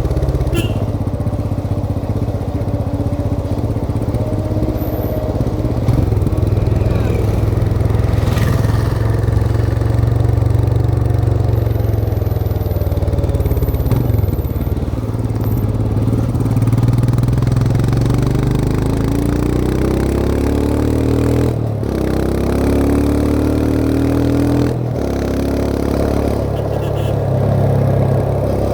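Royal Enfield Himalayan 411's single-cylinder engine pulling steadily on the move. Near the end it climbs in pitch as it accelerates, with short dips in between that mark two gear changes.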